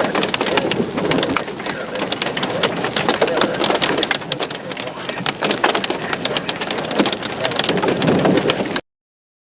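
Hailstones and rain pelting down, a dense clatter of many small impacts over a steady downpour hiss; it cuts off suddenly near the end.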